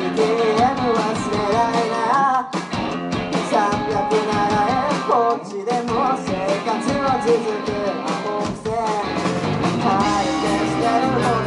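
Live rock band playing: a male lead vocal sings over electric guitars, electric bass and a drum kit.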